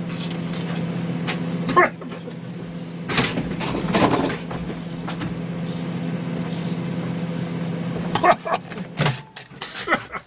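Microwave oven running with a steady hum, with scattered crackles and clicks from the smoking compact fluorescent lamp inside. The hum cuts off about nine seconds in, just after a loud click.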